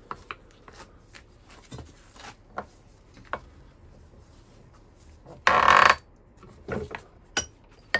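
Handling of a steel A/C compressor pulley in a bench vise: light metal clicks and knocks as it is set between the jaws, and one loud scraping rattle about half a second long, some five and a half seconds in, as the vise is tightened on it.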